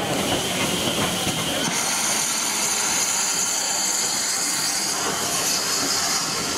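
Steam train, with a loud hiss of escaping steam coming in about two seconds in and carrying on.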